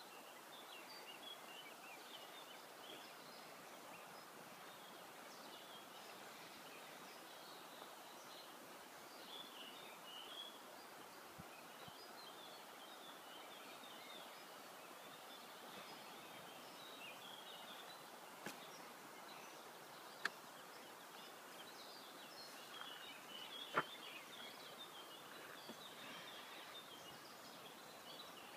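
Quiet outdoor garden ambience with faint small-bird chirping scattered throughout. A few sharp clicks stand out, the loudest about 24 seconds in.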